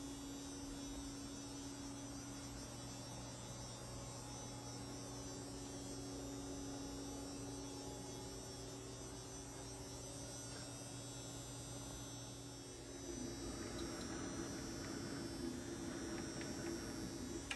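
Steady electrical mains hum in a machine shop, with a light hiss that grows a little louder about two thirds of the way through.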